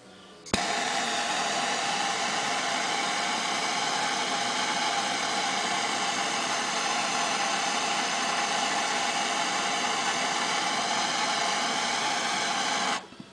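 Handheld gas torch lit with a pop about half a second in, then burning with a steady hiss while it heats heat-shrink tubing on a wire, and shut off abruptly near the end.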